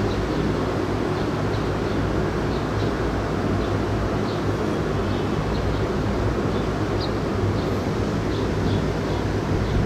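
Steady low rumble and hum of outdoor background noise, with faint short high chirps of small birds scattered through it.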